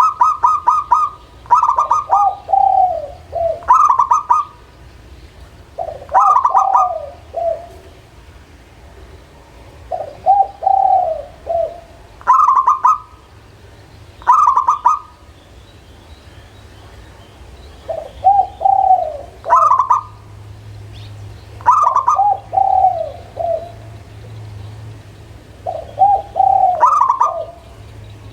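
Zebra dove (perkutut) cooing: about ten rapid cooing phrases a few seconds apart, each a quick run of higher notes falling into lower rolling coos. A faint steady low hum lies underneath.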